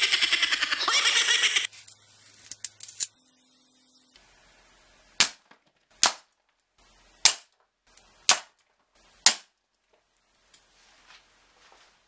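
Five sharp thuds of thrown darts striking a cardboard-box target, roughly a second apart, starting about five seconds in. Before them comes a loud burst of noise lasting about a second and a half, then a few faint clicks.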